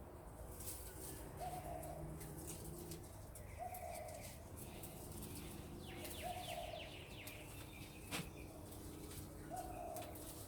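A dove cooing, one short coo every two to three seconds, with another bird chirping briefly in the middle and faint rustling throughout; a single sharp click sounds about eight seconds in.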